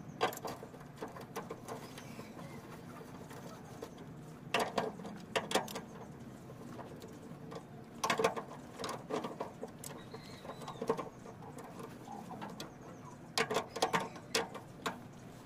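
A hand wrench clicking and clinking in short bursts on the bolts of a propeller shaft's center bearing support as the shaft is being taken off.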